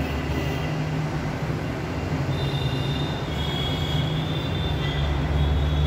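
A train running past: a steady low rumble, with thin high wheel-squeal tones coming in about two seconds in.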